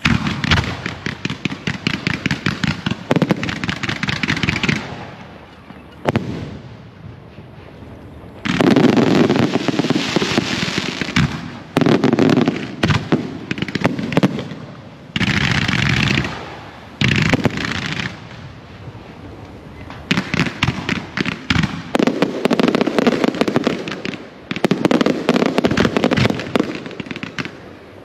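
Aerial fireworks display firing: rapid strings of bangs from launches and shell bursts come in runs of a few seconds. Short, quieter lulls fall between the runs.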